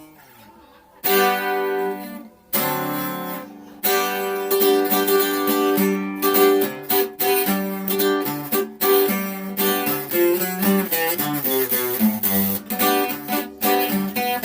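A plucked string instrument being played: after a brief pause, three strummed chords ring out one after another about a second apart, then steady strumming with picked notes runs on.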